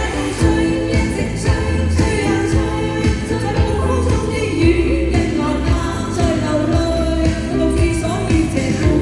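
A Chinese pop song sung live over a backing track with a steady drum beat.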